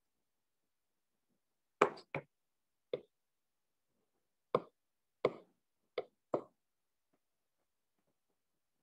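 Seven short, sharp taps, irregularly spaced over about four and a half seconds, the first the loudest, against near silence.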